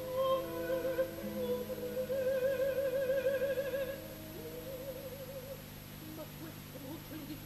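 A female opera voice singing long held notes with wide vibrato over an orchestra. About four seconds in the singing drops back and the orchestra carries on more quietly.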